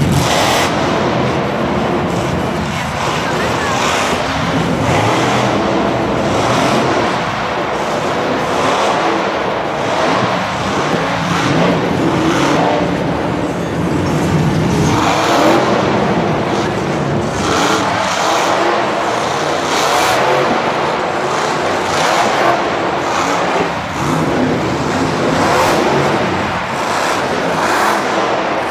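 The Barbarian monster truck's supercharged V8 engine revving hard and surging again and again, loud and echoing in a stadium full of crowd noise.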